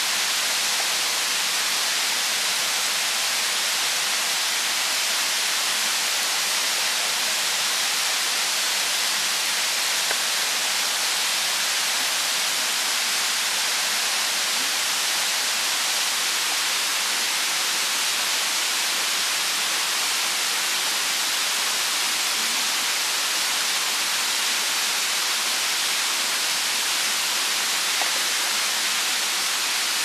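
Steady rushing of a mountain stream, an even hiss that holds one level throughout.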